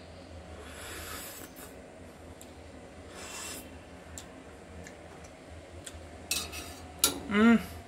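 A person sipping hot dal off a spoon: two soft, airy sips, about a second in and about three seconds in, then a short hummed "mm" with a wavering pitch near the end as it is tasted.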